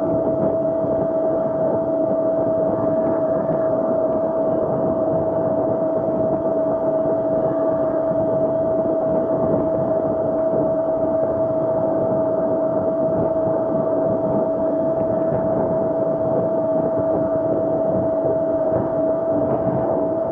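Razor SX500 electric dirt bike riding at a steady speed, its electric motor whining at one unchanging pitch over a constant rush of wind and tyre noise.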